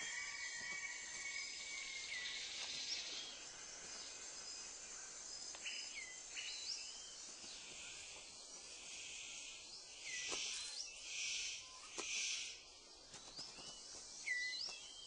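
Tropical forest ambience: a steady high insect drone, with short chirping bird calls scattered through it. About two-thirds of the way in come three short, louder bursts of rustling noise.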